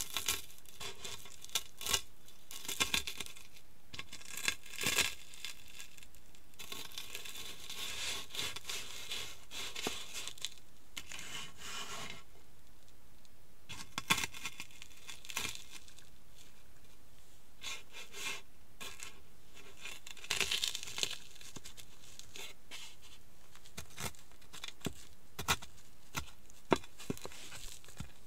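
Crunchy Cheetos crushed under the soles and heels of high-heeled sandals on a hard floor: irregular bursts of crunching and crackling, with quieter pauses between presses.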